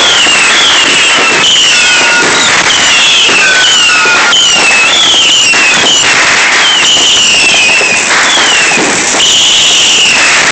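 Fireworks and firecrackers going off together: a loud, continuous crackle of pops and bangs, with a falling whistle repeating about once a second.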